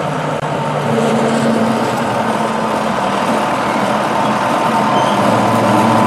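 Wheel loader's diesel engine running as it drives with a loaded bucket of gravel, getting a little louder about a second in.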